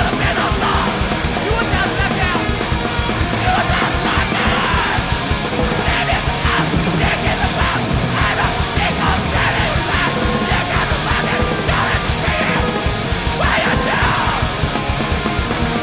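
Live hardcore punk band playing loud and fast: distorted electric guitars, rapid drumming and shouted vocals.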